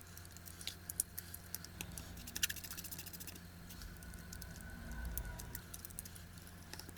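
Faint small clicks and a light metal rattle as the angle grinder's freshly fitted rotor and gear pair are turned by hand in the open gear housing. A faint thin whir comes in about four seconds in and lasts a couple of seconds.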